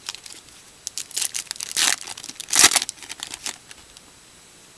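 Foil wrapper of a baseball card pack being torn open and crinkled by hand, in a run of crackling rips. The two loudest rips come a little under a second apart, around the middle, and the crackling stops after about three and a half seconds.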